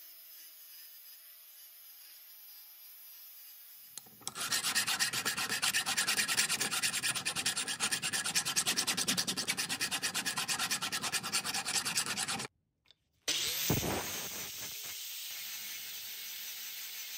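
A hand file scraping across the steel of a tomahawk head held in a vise, in rapid, even strokes for about eight seconds. After a brief dropout, an angle grinder runs steadily against the steel.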